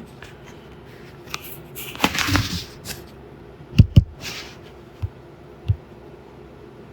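Handling noises: a brief rustle about two seconds in, then two sharp knocks in quick succession near the middle, followed by a couple of light taps.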